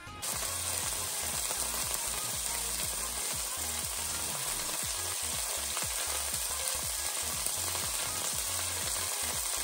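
Sirloin steak searing in olive oil in a hot frying pan: a steady sizzle that sets in suddenly right at the start.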